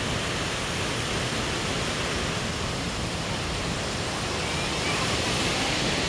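Steady rushing of a fast, muddy river running over rocks, growing a little louder near the end.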